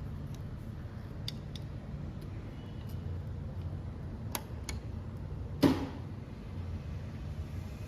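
Small metallic clicks and, about two-thirds of the way in, one louder ringing clink as the locking clip is fitted to the rear brake caliper's pad pin. A steady low hum runs underneath.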